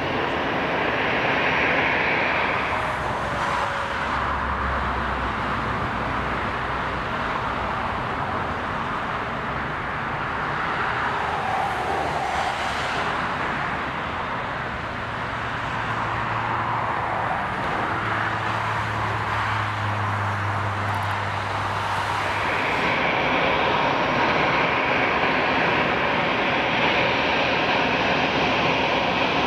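Jet engines of a Boeing 777-300 airliner during landing: a continuous rushing engine noise that grows louder about 23 seconds in.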